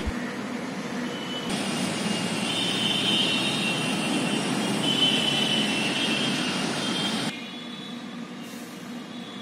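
Steady outdoor road-traffic noise, a low rumble with hiss. It grows louder and brighter about a second and a half in, then drops back abruptly a couple of seconds before the end.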